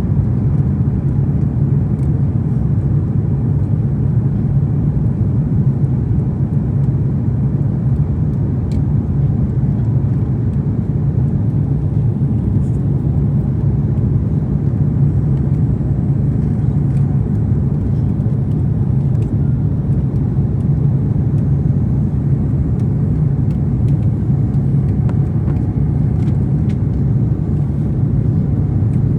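Steady cabin noise of a jet airliner in flight heard from a window seat: an even, low, unchanging rush of engine and airflow noise, with a few faint ticks.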